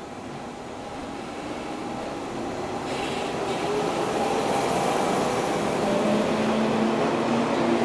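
JNR-type electric multiple unit rolling past along the platform as it pulls into the station. Its running noise grows steadily louder, with steady humming tones coming in over the last couple of seconds.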